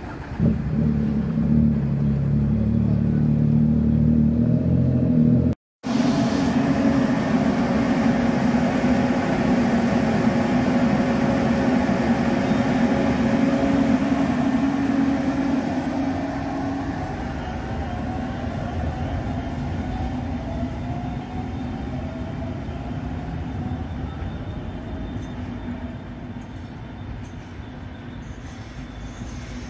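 Cumana ET507 electric train pulling away from a station, its traction motors whining in several tones that rise in pitch as it speeds up, over a low rumble that slowly fades as it leaves. A loud low rumble fills the first few seconds, before a sudden break.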